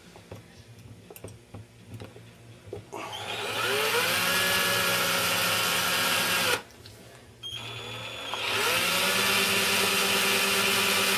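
Small electric drill boring a hole in a tiny metal model-car exhaust dump. The motor spins up about three seconds in, runs steadily for a few seconds and stops suddenly, then starts again partway through for a second steady run.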